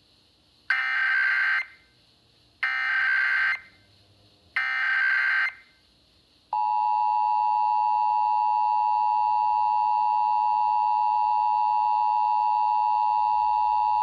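Emergency Alert System test tones from a Midland emergency radio: three short bursts of warbling SAME header data, then about six and a half seconds in, the steady two-tone EAS attention signal.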